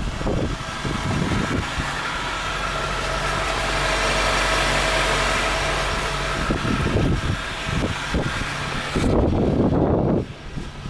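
Honda engine idling after a cold start in freezing weather, with a steady hiss that swells and fades around the middle and a few short rough noises about 9 to 10 seconds in.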